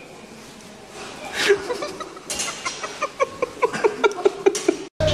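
Laughter in quick repeated bursts, beginning about two seconds in and cut off abruptly just before the end.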